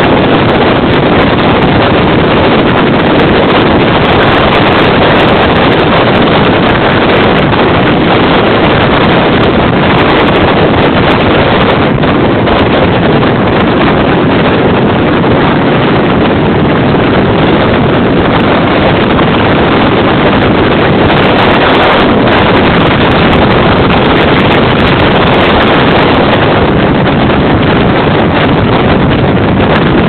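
Strong wind blowing hard against the microphone: a loud, unbroken rush of wind noise with gusts.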